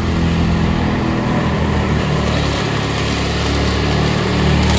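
An engine running steadily, a constant low hum with a rushing noise over it.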